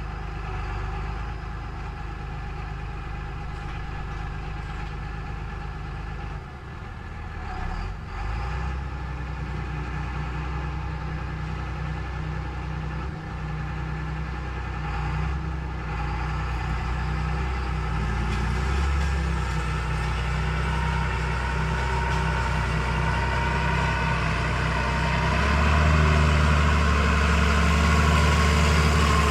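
Motor of a homemade miniature tractor ploughing machine running steadily with a low hum. It grows louder over the last ten seconds, with a rising whine near the end.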